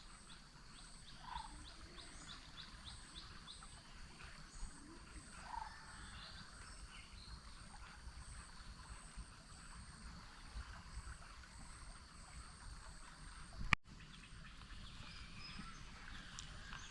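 Forest ambience: birds calling, with a quick run of high chirps in the first few seconds and scattered calls after. A high-pitched pulse repeats about twice a second throughout, over a low steady hiss. A sharp click and a brief cut in the sound come near the end.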